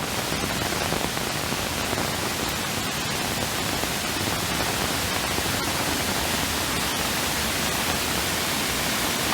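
Steady, unbroken rush of water in heavy rain: rain and rainwater pouring down the hillside, with no change in level.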